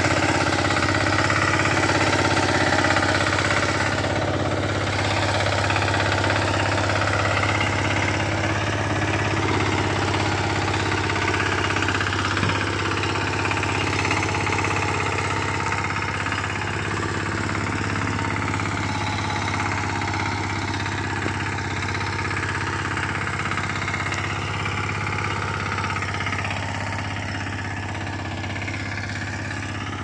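Walk-behind power tiller's small engine running steadily under load as its rotary tines churn dry, clumpy soil. It grows gradually fainter over the second half as the tiller moves away.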